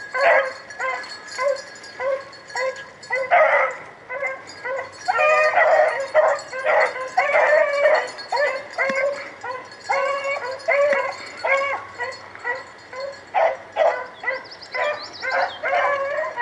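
Rabbit-hunting hounds baying on a rabbit's trail: quick, repeated cries with several voices overlapping, the sound of the pack running the rabbit.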